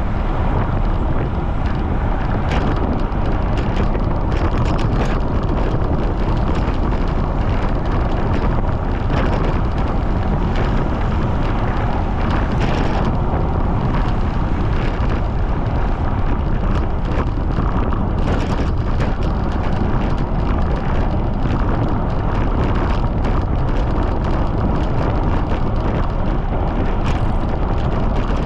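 Strong wind buffeting the microphone of a camera on a bicycle riding at speed: a loud, steady rumble, with faint scattered ticks over it.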